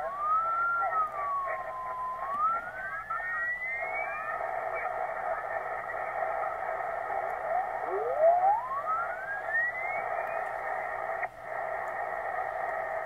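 Receiver audio from a Yaesu FT-450D HF transceiver on the 80 m band, lower sideband, as the tuning dial is turned. There is steady band noise and static. Whistling beat tones glide up in pitch as the dial sweeps across signals: one runs through the first few seconds, another comes around the middle. The audio drops out briefly near the end.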